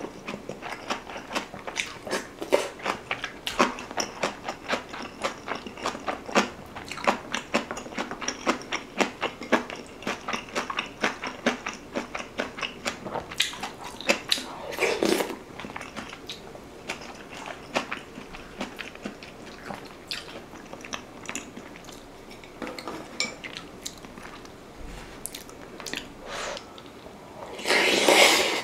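Close-miked eating sounds of rice soaked in beef-rib soup: steady wet chewing and mouth clicks, with a louder slurp about halfway through and a stronger one near the end.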